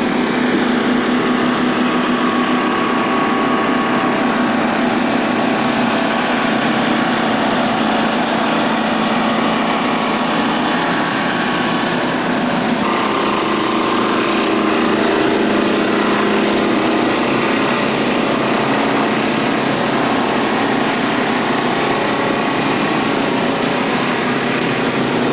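Small outboard motor running steadily as it drives a boat through floodwater; its pitch shifts slightly about halfway through.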